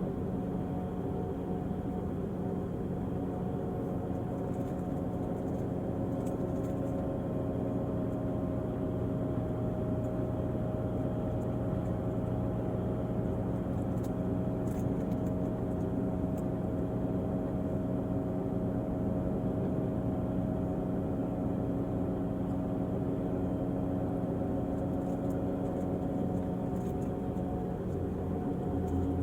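Volvo diesel engine of an Irizar i6s coach running at a steady speed, a constant hum with a low rumble that does not rev up or down.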